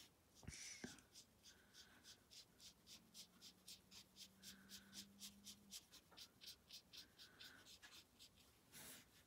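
Faint, quick strokes of a Wink of Stella glitter brush pen on cardstock, about three a second in an even rhythm.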